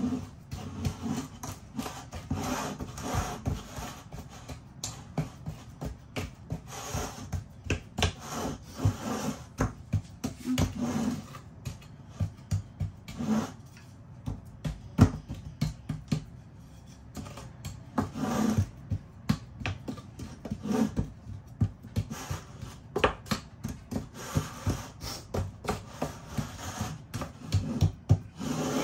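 A spatula scraping, pressing and tapping a buttery crushed-Oreo crumb base into a metal springform cake tin, in many short, irregular strokes.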